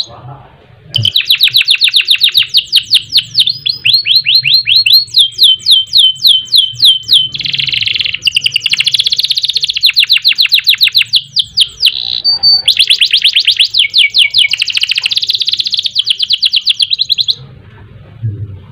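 Domestic canary singing a long song of fast rolling trills and rapid repeated notes, with short breaks about a second in and around twelve seconds.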